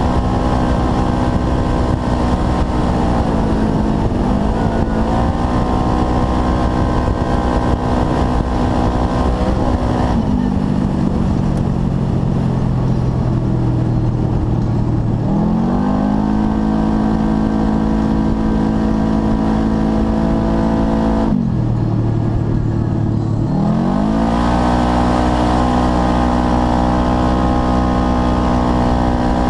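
2012 Polaris RZR 4 900 XP's twin-cylinder engine through a full race exhaust, running loud at high revs while driving. Its note drops and climbs back three times: briefly a few seconds in, for several seconds from about ten seconds in, and most deeply around twenty-one seconds in.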